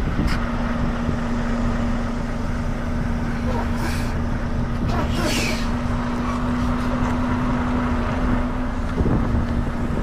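Semi truck's diesel engine running at low speed while the rig reverses, a steady low rumble with a constant hum, heard from inside the cab. Two brief hisses come about four and five and a half seconds in.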